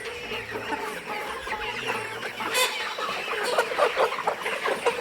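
A flock of young layer pullets clucking and chirping, many birds at once, with a sharp click about halfway through.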